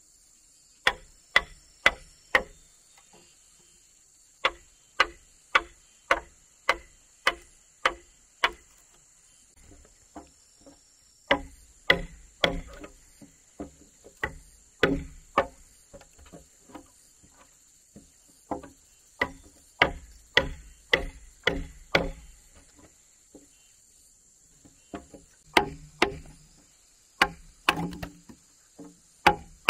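A hammer striking a chisel into a wooden house pillar to cut a mortise hole: sharp wooden knocks about one and a half to two a second, in runs broken by two short pauses.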